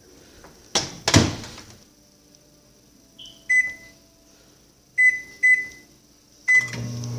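Microwave oven being set: two knocks about a second in as the door is shut, then four keypad beeps as the time is entered, and near the end the oven starts running with a steady low hum.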